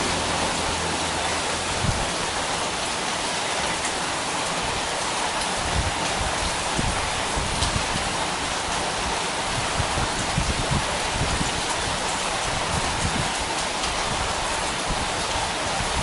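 Steady rain, an even hiss with scattered louder drops.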